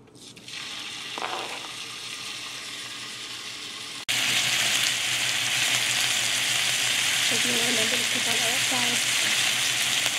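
Raw chicken pieces sizzling in hot oil in a nonstick frying pan as they go in and are stirred with a wooden spoon. The sizzle starts about half a second in and turns much louder about four seconds in.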